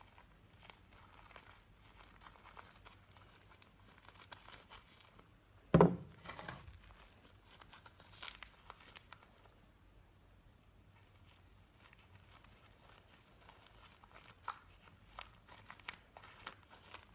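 Homemade slime being kneaded by hand with shaving foam worked in, giving faint crackling and small sticky clicks. One loud thump about six seconds in.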